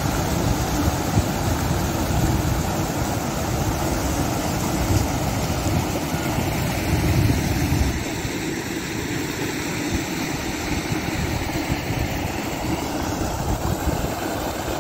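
Muddy floodwater rushing through shallow gravel channels, a steady rush of water with uneven wind rumble on the phone's microphone. The sound shifts about eight seconds in.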